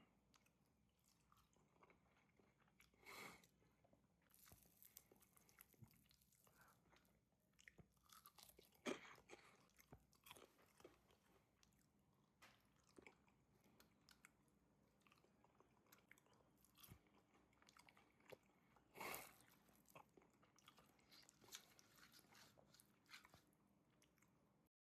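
Faint chewing and crunching as someone bites into and eats food, likely the chilli chicken, with irregular crisp bites scattered throughout. The loudest bites come about 3, 9 and 19 seconds in.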